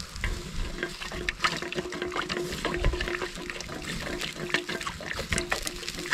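Hot water swirling and sloshing in a blackened metal camp kettle as a thin stick stirs it, with many scattered crackles and pops from the wood fire beneath.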